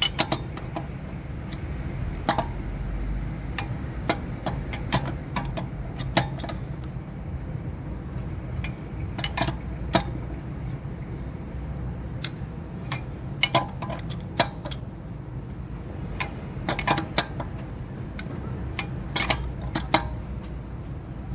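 Metal wrench clicking and clinking on wheel lug nuts as they are tightened down, in irregular sharp clicks, some in quick clusters. A steady low hum runs underneath.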